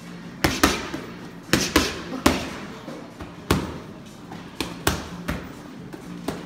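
Boxing gloves landing on focus mitts in quick combinations: about nine sharp smacks, mostly in pairs, each with a short echo.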